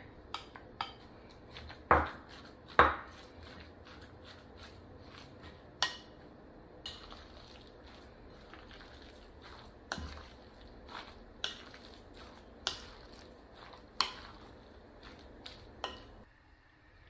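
Wooden spoon stirring a pork and shrimp filling in a glass mixing bowl, knocking against the glass now and then, with two louder clunks about two and three seconds in. The knocks stop a second before the end.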